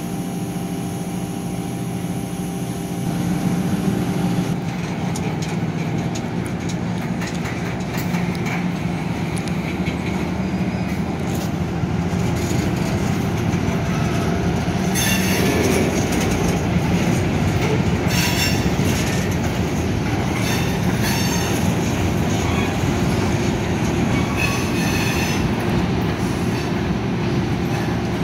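Covered hopper cars rolling slowly past during a switching move, their steel wheels rumbling and clacking over the rail. The wheels squeal in several short bursts in the second half. A steady engine hum stops about four seconds in.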